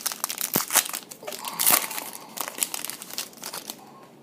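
Crinkling of a football trading-card pack's foil wrapper as it is handled and opened: a dense run of sharp crackles that thins out near the end.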